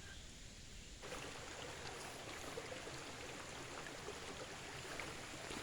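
A small creek flowing, a steady rush of water that gets louder about a second in.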